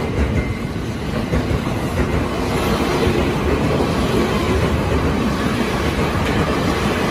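A JR East E259 series Narita Express electric train pulling out and rolling past close by, its wheels and running gear making a steady rumble on the rails.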